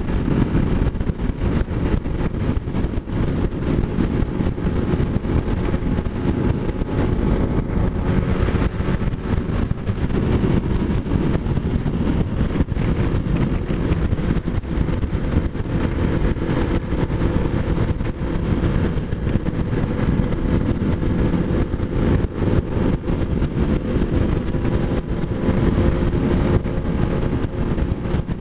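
Kawasaki motorcycle at cruising speed: heavy wind buffeting on the rider-mounted microphone, with the engine's steady drone beneath it.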